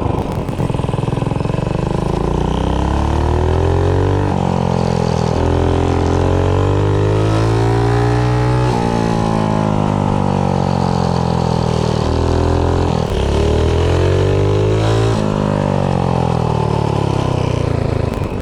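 Mini bike's Predator 212 single-cylinder engine, fitted with a GX160 cylinder head, running under load. Its revs rise and fall several times as it pulls and slows, with abrupt pitch steps where it shifts load or throttle.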